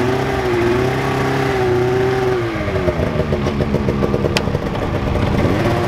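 A 2022 Polaris snowmobile's two-stroke engine running, steady at first, then its pitch dipping and rising as the throttle is worked to drive the sled backward off a pickup truck's bed.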